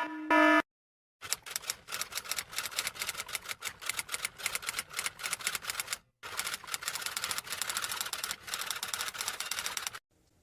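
A last electronic beep, then typewriter keys clacking rapidly in two long runs with a brief break between them.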